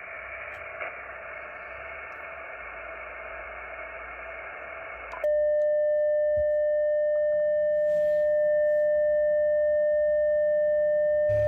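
Icom IC-706MKIIG transceiver's receiver hiss from its speaker. About five seconds in it switches to a loud, steady single-pitched beep, the radio's CW sidetone as it transmits a carrier in CW mode so that the ATAS-120A screwdriver antenna can be tuned.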